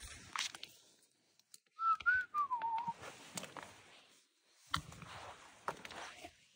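A person whistles a short phrase about two seconds in, one clear note wavering up then sliding down, lasting about a second. Around it come scattered crunches and scrapes of spiked caulk boots stepping along snowy logs.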